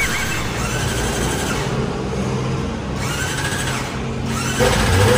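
Kawasaki Ninja ZX25R's 249 cc inline-four engine running steadily.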